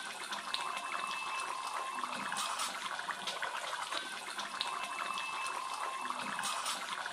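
Stingray fish curry simmering in a wide metal pan: a steady bubbling, crackling hiss with small pops, and a faint steady whine underneath.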